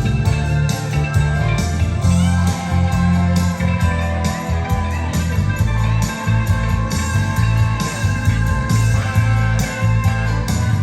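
Rock song played back: electric guitar over bass and a steady drum beat.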